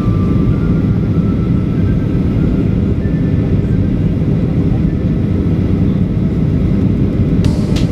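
Steady low roar inside the cabin of a Boeing 737-800 in flight, the noise of its CFM56-7B engines and airflow past the fuselage. A few sharp clicks come near the end.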